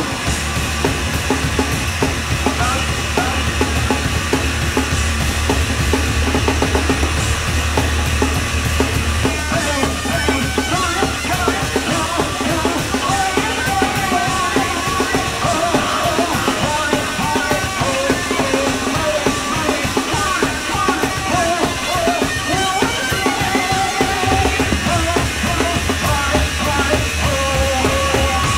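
Live noise rock from a bass-and-drums duo: a heavily distorted bass guitar over fast, dense drum-kit pounding. The heavy low bass thins out for a long stretch in the middle, then comes back strongly a few seconds before the end.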